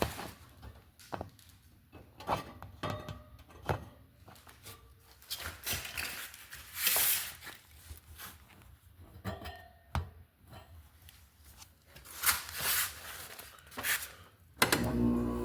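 Scattered clicks and knocks, then near the end a steady droning hum starts abruptly: the RA51k window air conditioner starting up.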